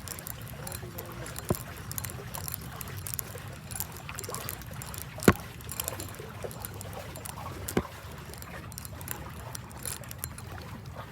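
Outdoor waterside ambience: a steady low rumble with scattered light clicks and ticks. Three sharp knocks stand out, about one and a half, five and eight seconds in, the middle one the loudest.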